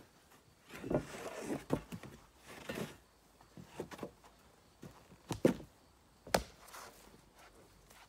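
Irregular wooden knocks, thumps and scrapes with footsteps as freshly sawn pine boards are handled. There are two scraping stretches in the first three seconds, and the sharpest knocks come a little after five and a little after six seconds in.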